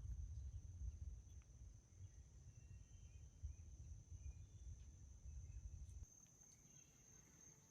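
Faint, steady high-pitched trill of insects, likely crickets, with a low wind rumble on the microphone that stops about six seconds in.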